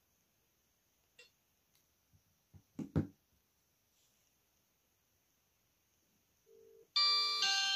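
A few sharp clicks of the JiSED A1 fidget spinner phone's buttons being pressed, the loudest pair about three seconds in. Near the end there is a short faint beep, then the phone's electronic ringtone melody starts playing through its small speaker.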